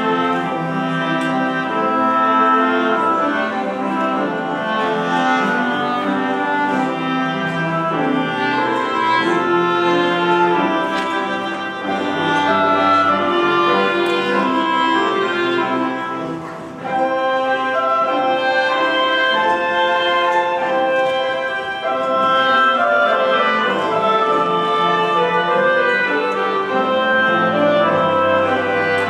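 Small live ensemble playing a melody, with clarinet, cello and acoustic guitar; the music thins out briefly about two-thirds of the way through, then carries on.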